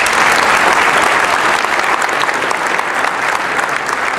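Audience applauding, many hands clapping steadily; it starts just before and tapers off slightly near the end.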